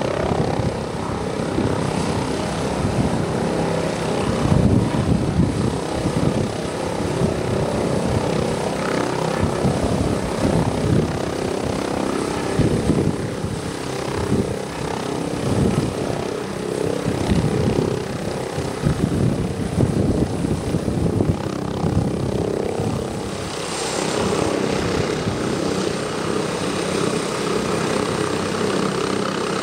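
Airbus H145 twin-turbine helicopter hovering low and settling onto its skids: uneven chopping of the main rotor over a steady high whine from the turbines and the Fenestron tail fan. The whine shifts in pitch about three-quarters of the way through.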